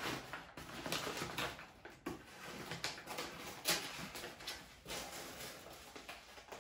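Waxed brown paper crinkling and rustling in irregular crackles as it is handled and pulled open around a rolled-up leather hide.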